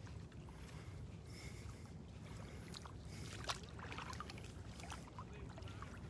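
Beach ambience: a steady low wind rumble on the microphone under soft, rhythmic hissing swishes about once a second. A single sharp tick about three and a half seconds in is the loudest moment.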